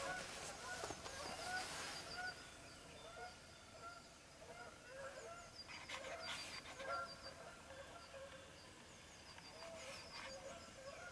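Birds calling in a dawn chorus, faint: many short, repeated lower call notes with quick high chirps over them, and a few brief clicks a little past the middle.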